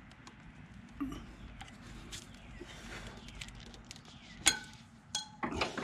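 Screwdriver prying at a clutch-cable clip on a motorcycle frame: small scrapes and clicks, then a sharp click with a brief ring about four and a half seconds in as the clip snaps off and goes flying.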